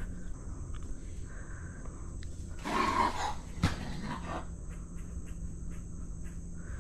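A raccoon just gut-shot with an arrow gives one short, hoarse growl about three seconds in, followed by a sharp click.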